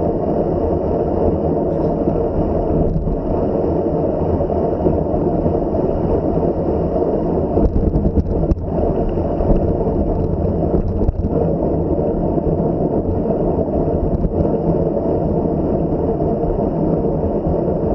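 Steady, loud rush of wind over the microphone of a camera riding along on a bicycle, with a few brief knocks about eight and eleven seconds in.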